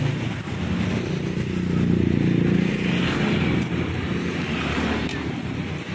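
Engine of a passing motor vehicle, most likely a motorbike, running with a low hum that swells about two seconds in, with a couple of light clicks near the end.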